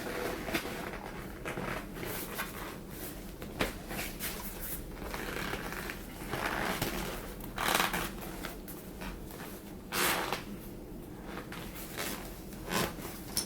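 Rustling and scuffing of a replacement leather armrest cover being worked and pulled onto a center console armrest lid by hand, with a few short louder swishes and light knocks.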